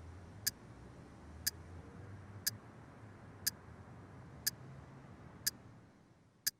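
Clock ticking steadily, one sharp tick each second, over a faint low hum that fades out near the end.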